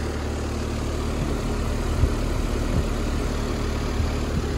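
ICP/Carrier heat pump outdoor unit running in cooling: a steady low hum from the compressor with the condenser fan blowing air, and a few faint knocks.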